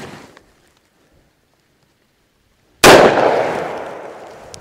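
A single .357 Magnum shot from a snubnose J-frame revolver with a 2-inch barrel, firing a 158-grain full-power load, about three seconds in, followed by a long fading echo.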